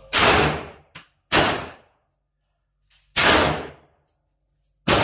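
Four shots from a Glock 19 9mm pistol, fired one at a time a second or two apart, each followed by a short echo in the covered range.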